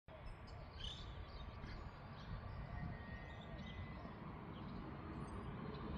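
Outdoor ambience: small birds chirping now and then over a steady low background noise.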